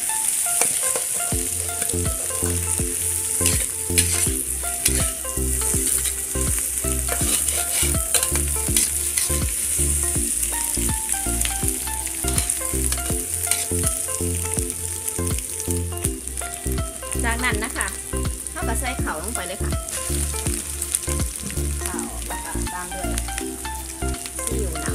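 Egg, onion and tomato sizzling in hot oil in a wok, with a spatula scraping and clicking against the pan as they are stir-fried. Background music with a steady beat runs underneath.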